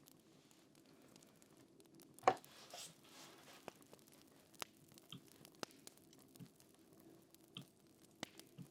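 Crackling fire: irregular sharp pops and crackles spaced about half a second to a second apart over a faint steady background, with one louder crack about two seconds in.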